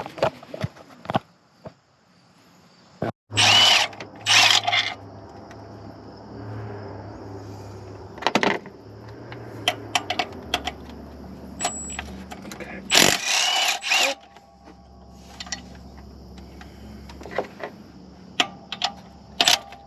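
Cordless power tool, a drill, impact or ratchet, running in short bursts about four times, with clicks and clatter of tools and parts between them.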